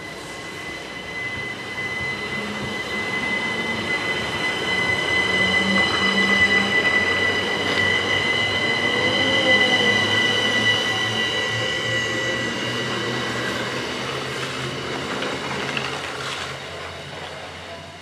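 Class 375 Electrostar electric multiple unit running past on snow-covered track. A steady high electric whine sits over the rumble of the train, swelling as it passes and fading as it draws away.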